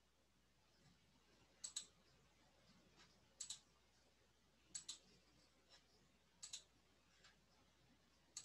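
Computer mouse clicks: a handful of sharp clicks, mostly in close pairs, every second or two, over near silence.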